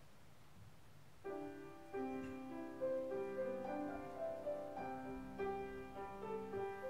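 Piano starts playing about a second in, an introduction of chords under a simple melody line leading into a sung gospel song.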